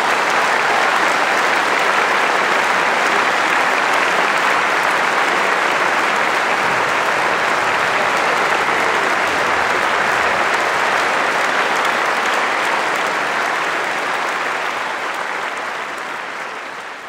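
A large audience applauding, a dense steady clapping that eases off near the end.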